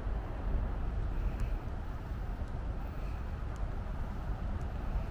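Steady low rumble of city traffic in the outdoor street ambience, with no single event standing out.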